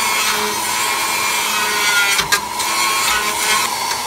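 Small handheld grinder working on the steel chassis frame of a 1976 Airstream Argosy trailer, throwing sparks as it grinds metal. Steady grinding that falters briefly about two seconds in, then carries on.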